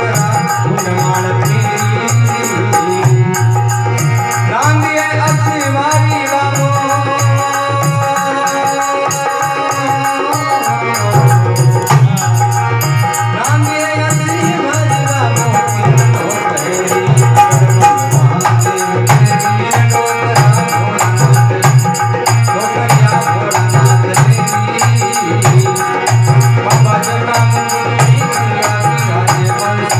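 Rajasthani (Marwari) folk music, mostly instrumental: a steady drum beat under rattling percussion ticking in quick even strokes, with sustained melodic tones on top.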